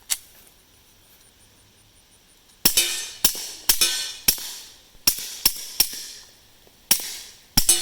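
A suppressed 9mm Glock 19 pistol firing 147-grain subsonic rounds through a SilencerCo Octane suppressor. There is one sharp crack right at the start, then a pause of about two and a half seconds, then nine shots at an uneven pace of one to three a second, each a muffled crack with a short ringing tail. Subsonic ammunition makes no bullet crack, so the shots are quieter than with supersonic rounds.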